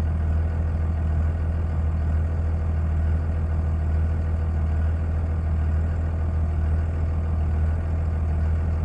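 A 24-valve Cummins inline-six turbodiesel in a 2002 Dodge Ram idling cold, its speed rising and falling slightly in a light surge or lope. This is typical of the engine's first minute after a cold start.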